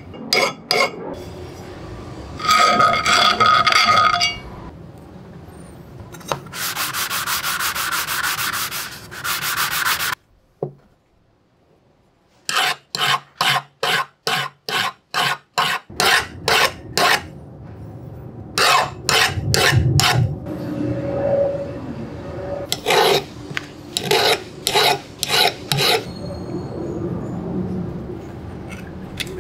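Hand file and steel burnisher strokes on the steel blade of a Darex No. 8 cabinet scraper plane: repeated metal-on-metal rasping, some in quick even runs and some at about three strokes a second, with a ringing stretch a few seconds in and a short pause near the middle. The strokes are sharpening the scraper's edge.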